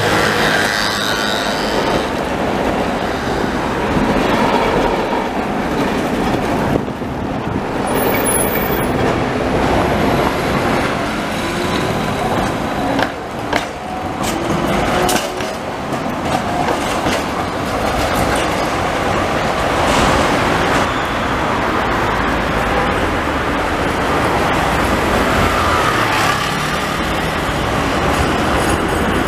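Trams running along street tracks amid city traffic: a steady rumble of wheels on the rails mixed with cars and motorbikes, with a few sharp knocks along the way.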